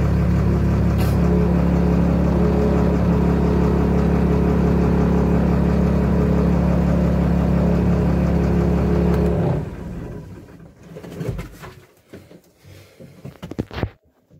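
Tata 1613 SE lorry's diesel engine running steadily at low revs. The engine sound stops suddenly about nine seconds in, leaving a few scattered faint knocks and rustles.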